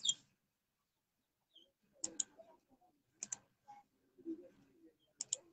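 Computer pointer-button clicks, four of them spread over a few seconds, each a quick pair of ticks as the button is pressed and released, as slides are duplicated from a right-click menu.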